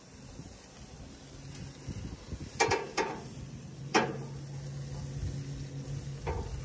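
Sharp clicks and knocks of a cooking utensil against a pan as chicken pieces are turned, four in all, the loudest about two and a half and four seconds in, over a steady low hum.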